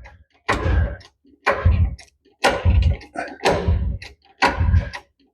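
Hydraulic aircraft jack being hand-pumped, about one stroke a second, each stroke a short low thud with a rasp.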